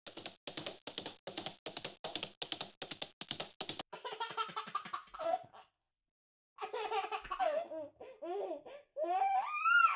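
A fast run of typing-like clicks, about five a second, for the first four seconds, then a baby laughing in several bursts with short gaps, the last burst rising in pitch.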